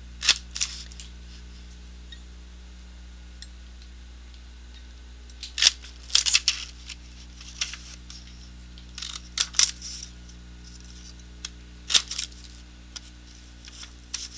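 Martha Stewart Punch Around the Page plastic paper punch clacking and crunching as it is pressed through vellum and paper, in several short clusters of clicks with pauses between.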